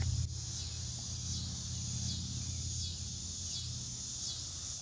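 Steady chorus of insects: a high hiss that swells and fades every second or so, over a low steady rumble that is the loudest part.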